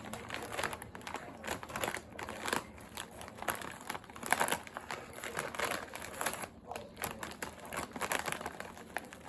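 Irregular crinkling and crackling: a dense run of small crackles with a few louder clusters, like something crumpled or handled.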